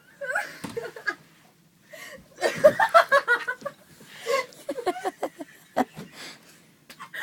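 Girls laughing and giggling in short choppy bursts, loudest about two and a half seconds in.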